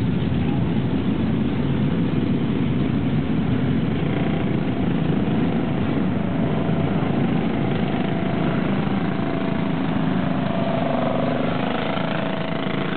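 Engines of several small dirt-track race cars running at low speed as the cars roll past in a slow procession. In the second half, one engine note rises and falls as a car passes close.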